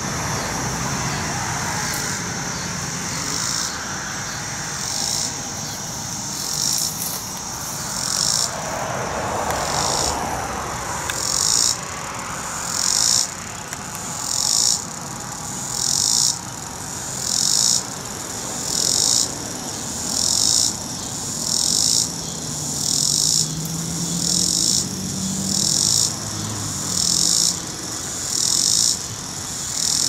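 Robinson's cicada (Neotibicen robinsonianus) singing: a steady high buzz at first, settling about six seconds in into a regular pulsing call, one loud phrase roughly every second and a half.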